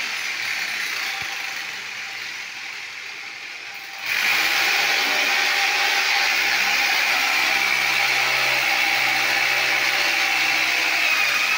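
Handheld angle grinder running steadily against a concrete floor, with a whining tone over grinding noise; it eases off over the first few seconds, then comes back up sharply about four seconds in and holds.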